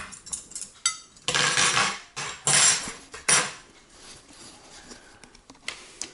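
Knife and fork clattering and scraping against a dinner plate as it is handled, in three loud scrapes within the first few seconds among lighter clicks.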